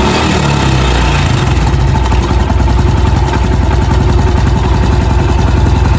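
Honda Pop 110i's single-cylinder four-stroke engine idling warm and steady, with a little pitch wobble in the first second. A faint knock is barely audible; a mechanic thinks it comes from a slack cam chain.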